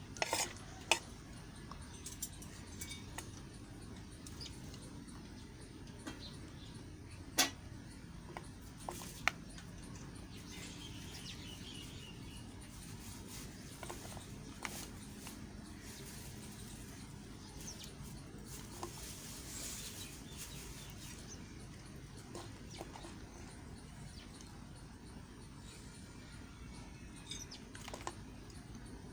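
Knife cutting a soft bar of Lux soap: scattered small clicks and crumbly scraping, with a few sharper snaps, over a low steady background hiss.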